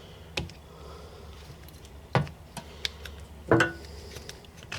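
A few sharp, irregular clinks and knocks as metal hydraulic cylinder parts (the piston and its seal and ring) are handled and set down on a workbench.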